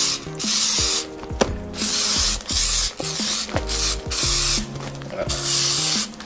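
Sanitizer sprayed from a spray bottle onto a plastic-wrapped parcel in a quick series of short hissing bursts, each under a second, with brief gaps between them.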